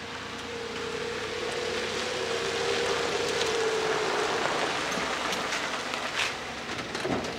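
Pickup truck pulling in on a gravel driveway and stopping: tyres crunching over the gravel with the engine running and a steady whine that drops in pitch about four seconds in as the truck slows.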